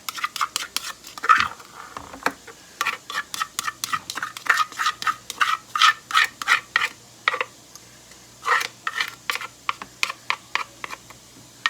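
A rapid series of sharp clicks and scrapes from kitchen utensils working against a dish or container, several a second with a couple of short pauses.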